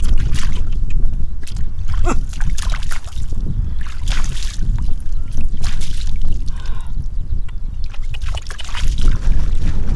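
Irregular splashing and sloshing as hands work through shallow muddy field water, over a steady low rumble of wind on the microphone.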